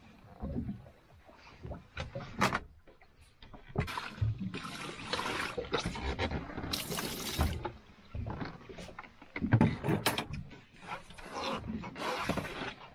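Scattered knocks and clatter of fishing gear being handled against a small boat's hull and gunwale, with several bursts of hissing noise.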